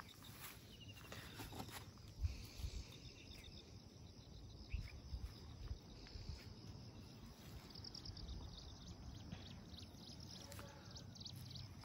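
Quiet outdoor ambience: insects chirping in short, rapidly pulsed trills that come and go, with a few soft knocks.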